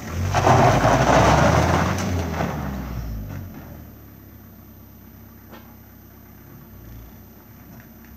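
Opel Corsa hatchback's engine revving loudly as the car pulls away over a gravel driveway, then dropping after about three seconds to a quieter running sound as it moves off.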